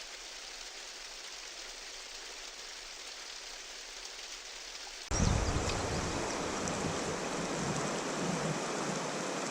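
Steady rushing of river water. About five seconds in it cuts to a louder outdoor recording, with wind buffeting the microphone over the water.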